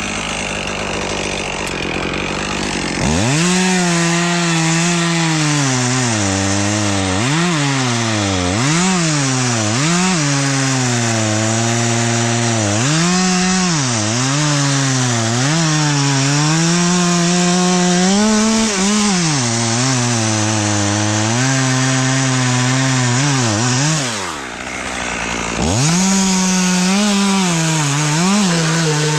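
Chainsaw idling, then opened up at about three seconds in and cutting into wood. Its engine pitch repeatedly sags and recovers as the chain bogs in the cut. Near the end it drops away briefly, then revs back up into the cut.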